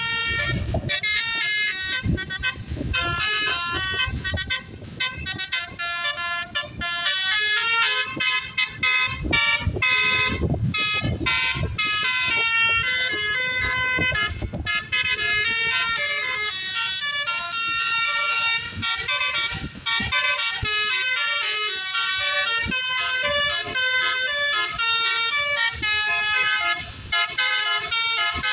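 Basuri telolet bus horn playing quick runs of notes, its tones jumping up and down several times a second with short breaks. Low rumbles come and go underneath.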